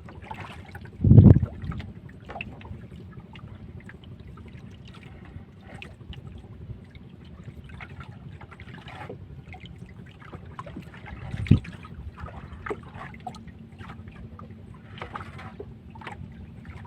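Water lapping and trickling around a small boat, with scattered light clicks and knocks. Two heavy low thumps stand out, one about a second in and another past the middle.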